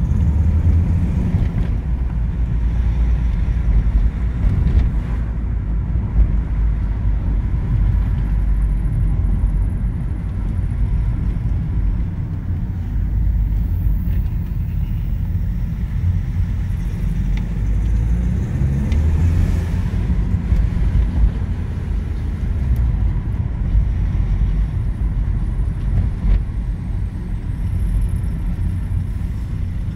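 BMW E46 318d's M47N four-cylinder diesel engine running steadily, with the injector ticking/knocking it is recorded for; the cause turned out to be worn Bosch injectors, cured by rebuilding all four.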